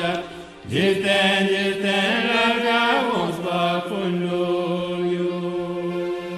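A Tibetan Buddhist prayer chanted in long drawn-out notes, with a short break near the start and sliding pitches around the middle. It ends on a long held note.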